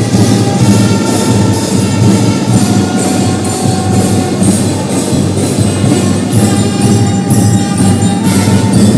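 School marching drum band playing: a fast, steady beat of drums and cymbals with a melody of held notes on top.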